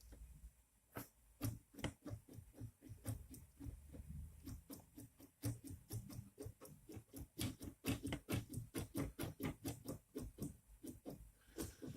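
Anet A8 X-axis carriage being forced by hand along its smooth rods: an irregular run of clicks and knocks, several a second and busier in the second half. The carriage is binding on its linear bearings and will not slide freely.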